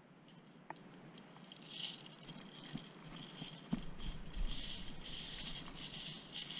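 Irregular footsteps crunching and scuffing on grit and dry leaves over a concrete floor, with small clicks. A low rumble joins about halfway through.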